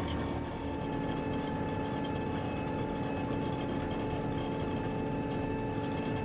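Diesel engine of a John Deere farm machine running steadily at road speed, heard from inside the cab as an even drone with a few steady tones.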